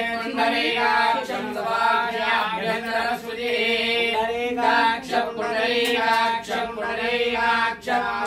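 Voices chanting a Hindu devotional mantra on a steady reciting pitch, with a few short breaks for breath.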